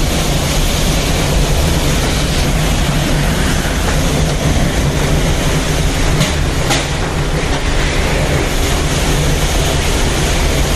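Violent windstorm driving heavy rain: a loud, steady rushing of wind and rain with a deep rumble underneath.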